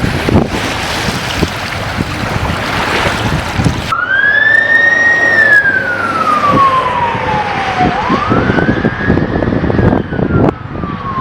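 Wind buffeting the microphone with a loud rushing noise. About four seconds in, an emergency vehicle siren starts a slow wail: it rises, falls over a few seconds, then rises and falls again about eight seconds in.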